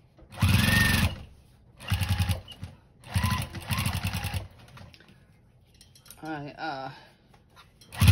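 Domestic sewing machine stitching in short stop-and-start bursts, about four in the first half and one more at the end, as it is fed a bulky stack of denim, batting and flannel that it struggles to get through. A short, wavering voice-like sound comes a little after the middle.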